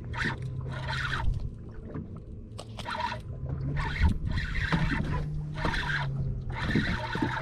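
Small waves lapping and slapping against a fiberglass boat hull about once a second, with a steady low hum underneath.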